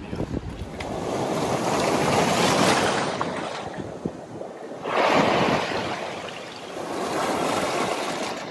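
Ocean waves surging over a rock ledge and draining back in foamy wash, in three swells; the second one comes in suddenly about five seconds in.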